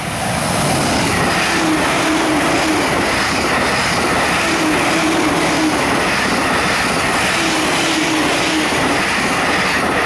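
JR East E531 series electric multiple unit passing at speed on wet track: a loud, steady rush of wheel and rail noise that swells within the first second and cuts off abruptly as the last car goes by near the end.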